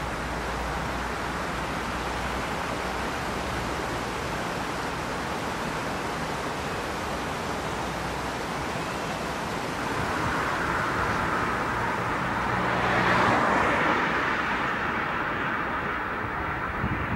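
Steady rush of city road traffic, with one vehicle passing that swells loudest about thirteen seconds in and then fades.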